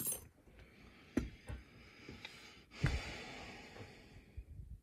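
A few light clicks and knocks as a picked lock and its picking tools are handled, over a soft hiss that fades out near the end.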